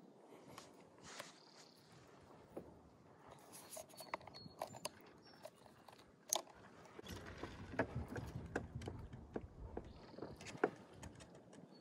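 Scattered light clicks, knocks and rustles of handling as a bass is weighed on a hand-held digital fish scale and unclipped, with a sharper knock about six seconds in and another near the end.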